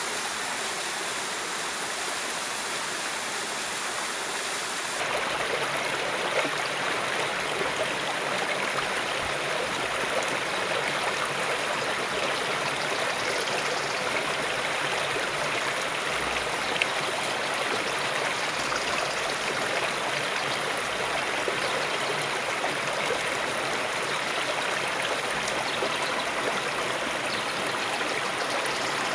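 River water flowing in a steady rush, which jumps louder about five seconds in.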